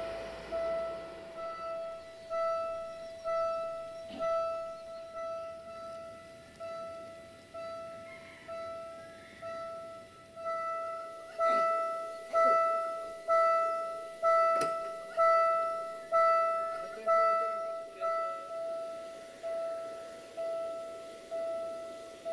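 Railway level crossing warning bell ringing: a single pitched ding repeated about once a second, each strike fading away before the next, louder in the second half, with a few sharp clicks.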